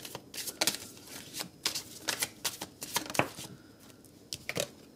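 A deck of tarot cards being shuffled by hand: an irregular run of crisp card flicks and snaps that stops near the end.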